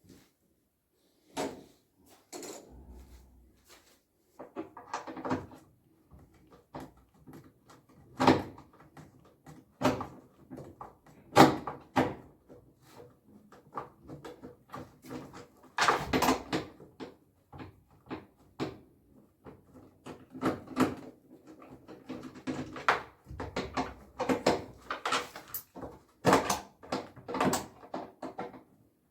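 Irregular knocks, clunks and clatter of parts and tools being handled during work on an LG washing machine, with some louder strikes that ring briefly.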